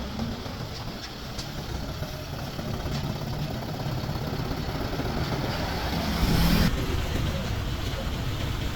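A motor vehicle running, with a steady low rumble and a brief loud hiss about six seconds in.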